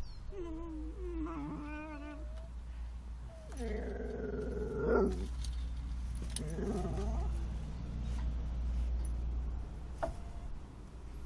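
Whippets at play, one making wavering, drawn-out whines and grumbles in three bouts, the middle one loudest.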